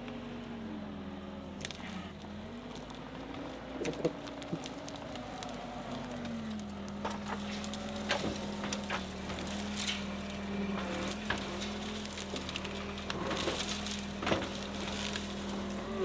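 John Deere 325G compact track loader's engine running, stepping up in pitch about six seconds in and then holding steady as the hydraulic tree puller grips and pulls a small tree. Crackling and snapping of roots and branches throughout, with sharper cracks in the second half.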